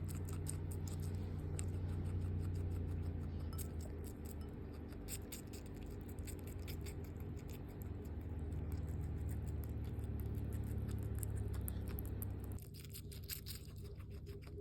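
Skinny guinea pig chewing watermelon: a run of quick, wet crunching clicks that come faster near the end. A steady low hum lies under the chewing and cuts off about two seconds before the end.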